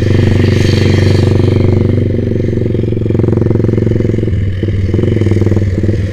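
Yamaha Vixion's single-cylinder four-stroke engine running through a Proliner TR1 R aftermarket exhaust at low, steady revs.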